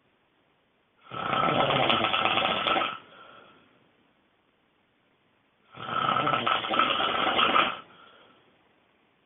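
A person snoring extremely loudly: two long snores about two seconds each, the second starting nearly five seconds after the first, each trailing off into a quieter breath.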